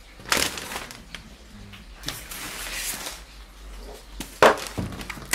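Clear plastic wrapping on a washing machine being pulled and handled, rustling and crinkling, with sharp knocks near the end.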